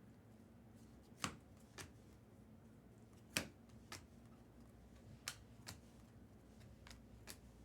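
Trading cards being handled and flipped through, giving sharp short snaps, about eight of them, several in pairs about half a second apart, over a faint steady background.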